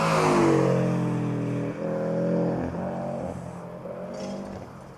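A car accelerating hard past, its engine note climbing and breaking with upshifts about two and three seconds in, then fading as it pulls away.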